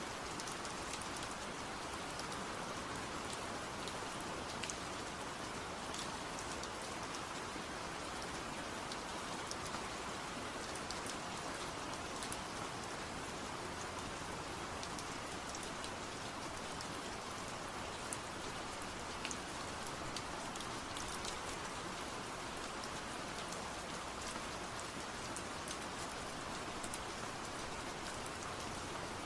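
Steady rain falling, with scattered drops ticking on a surface.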